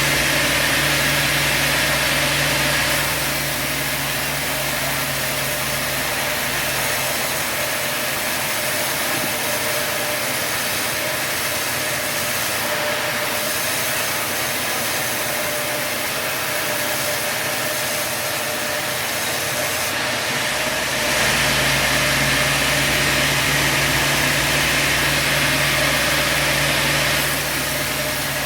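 Sawmill machinery running steadily. It turns louder and harsher for the first few seconds and again for about six seconds near the end.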